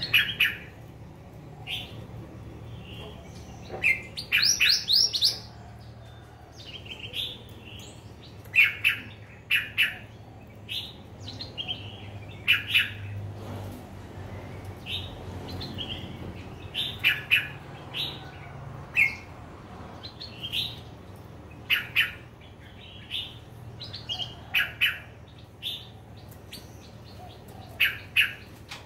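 Bulbul (merbah) calling from its cage: short, clear chirps, sometimes single and sometimes in quick runs of several notes, coming every second or few at irregular intervals.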